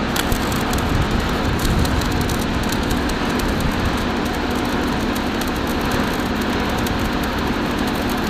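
Electric welding arc crackling and sizzling steadily over a constant low hum.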